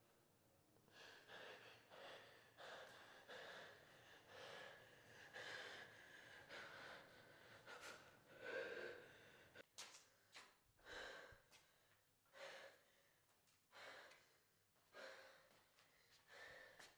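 A boy breathing hard in short gasps, faint, the breaths coming about two a second at first, then slowing and spreading out about halfway through.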